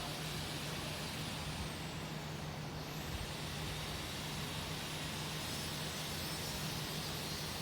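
Leonardo AW189 helicopter running, its twin turboshaft engines and rotor making a steady rush of noise over a constant low hum.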